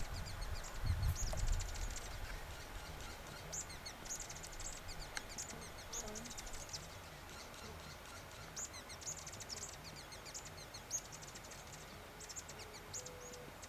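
Male Peruvian sheartail hummingbird singing: faint, short bursts of very high, thin, rapid notes, repeated every second or few.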